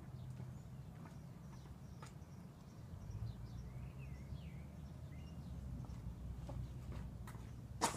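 Quiet outdoor ambience: a steady low rumble with a few faint bird chirps around the middle, scattered light clicks, and one sharper click just before the end.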